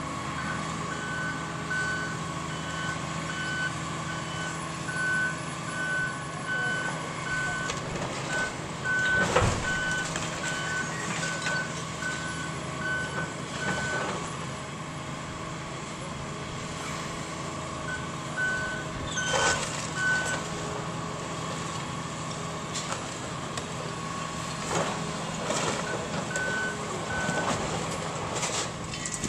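A backup alarm beeping in runs of high, even beeps over the steady running of a diesel excavator's engine during demolition. Crashes of falling debris break in a few times; the loudest comes about nine seconds in.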